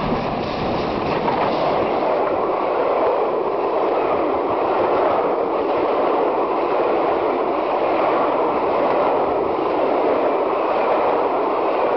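LMS Jubilee Class three-cylinder 4-6-0 steam locomotive passing close by, then the steady, loud rumble of its passenger coaches' wheels rolling past on the rails for the rest of the time.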